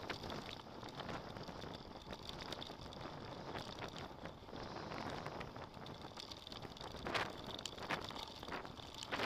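Riding a mountain bike on a dirt track: wind noise on the microphone over a steady rush of tyre and bike noise, with a few sharp knocks near the end.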